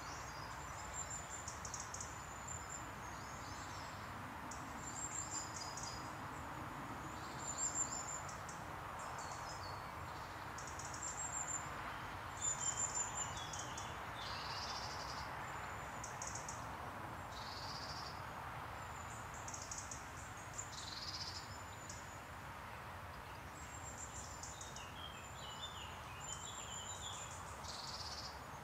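Woodland birds singing, with short high-pitched phrases and trills coming every second or two over a steady background hiss and low rumble.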